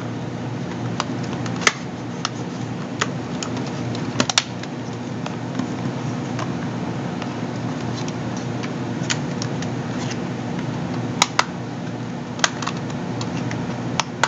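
Sharp, irregular plastic clicks and snaps as a plastic pry pick works along the seam of a Magellan RoadMate 1700 GPS's plastic case, prying at the clips that hold the backplate. Under the clicks runs a steady low hum.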